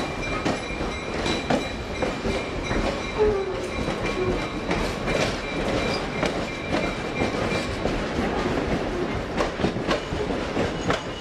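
Passenger train rolling slowly on jointed track: a steady rumble of the cars with irregular clicks and knocks from the wheels and running gear.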